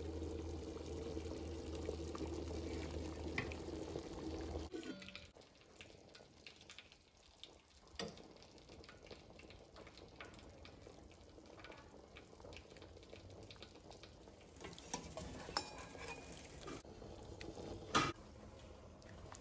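Pot of chickpea stew simmering, with quiet bubbling and crackling. A steady low hum for about the first five seconds stops suddenly, and a couple of sharp clicks come about eight seconds in and near the end.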